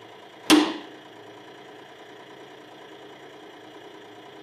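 Hydraulic press squeezing an old Soviet screw jack, with one sharp metallic crack about half a second in as the overloaded jack yields. The press's pump motor hums steadily throughout.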